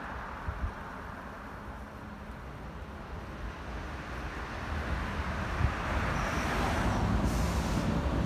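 Keihan electric train rolling slowly along the depot track toward the listener, its low running rumble growing louder over the last few seconds. A couple of short knocks and a brief high squeal come near the end.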